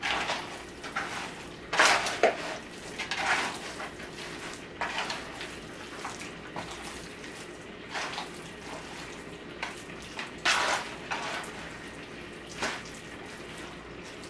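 Scattered rustles and light clinks of raw chicken pieces being seasoned with powder and worked in a bowl, with a few short bursts of shaking or tossing.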